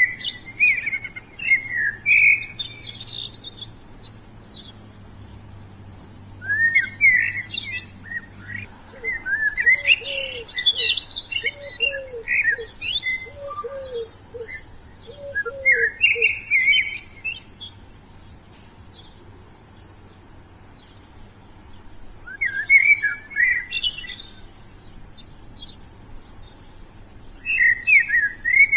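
Wild songbirds singing in bursts of quick, twittering chirps, phrases of several seconds broken by pauses. Through the middle a lower, softer series of about eight short repeated notes runs under the chirping.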